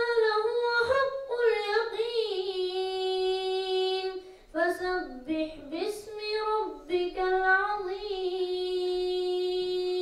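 A boy's voice chanting a melodic recitation into a handheld microphone, in long held notes with winding ornaments. It pauses briefly for breath about four and a half and seven seconds in.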